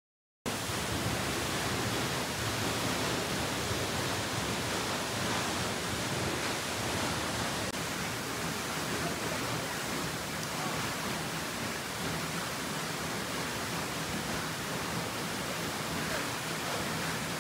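Steady, even rush of falling water, like a waterfall, starting abruptly about half a second in.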